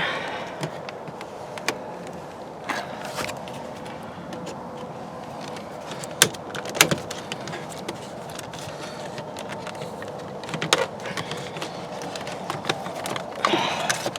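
Flathead screwdriver prying the plastic headlight-switch trim out of a 2005 Dodge Caravan's dashboard: scraping with sharp plastic clicks and snaps as the corners pop loose, the loudest about six and seven seconds in.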